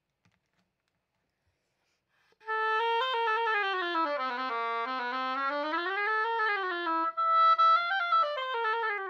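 Oboe played with a freshly clipped cane reed, entering about two and a half seconds in with a legato run that falls and rises, then a higher phrase that falls back. The tone still spreads, a sign that the reed is still slightly flat and out of control.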